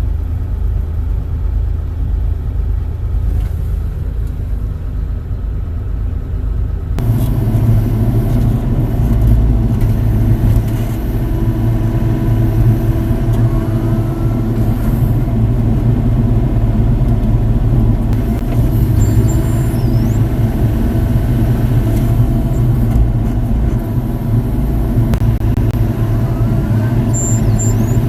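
Engine of heavy work machinery running steadily. It becomes louder and fuller about seven seconds in.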